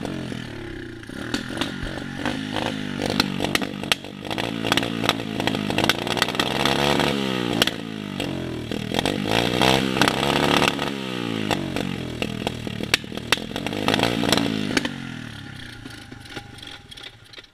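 Small dirt bike engine revved again and again, each rev rising and falling in pitch, then dying away near the end.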